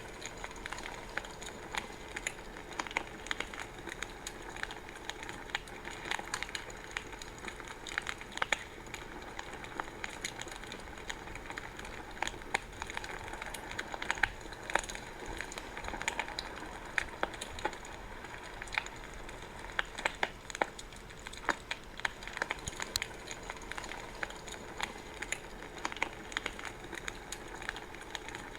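Wood fire crackling: a steady soft hiss with frequent irregular sharp pops and snaps.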